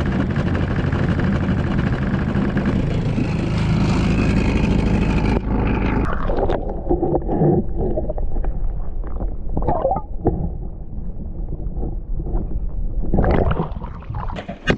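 Small outboard motor running steadily at trolling speed, then an abrupt switch about five seconds in to the muffled sound heard by a submerged camera: water sloshing and gurgling, with splashing near the end.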